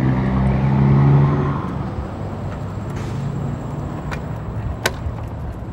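A car's engine running close by, loudest in the first second and a half and then fading, over a steady rumble of road noise. A single sharp knock near the end.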